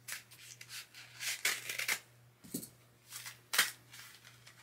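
A paper mail envelope being handled and opened: a series of short rustling, scraping bursts, the loudest about three and a half seconds in.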